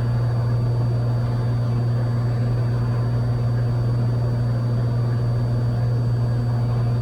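Cessna 182's engine and propeller running steadily at cruise power, heard inside the cabin as a constant low hum.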